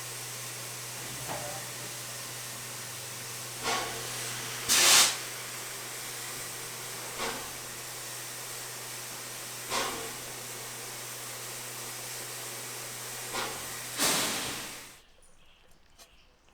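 Steam locomotive 60163 Tornado, a Peppercorn A1 Pacific, standing in steam: a steady hiss of escaping steam with a low hum under it, and short louder bursts every few seconds, the loudest about five seconds in and another near the end. The sound stops abruptly about fifteen seconds in.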